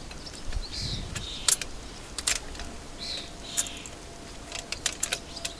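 Used steel horseshoes clinking against each other and the steel welding table as they are set in place by hand: a scatter of irregular light metallic clicks and taps.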